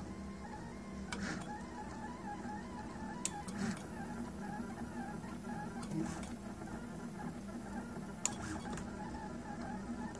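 Prusa Mendel RepRap 3D printer's stepper motors whirring in shifting pitched tones as the print head travels while printing, with a few sharp clicks.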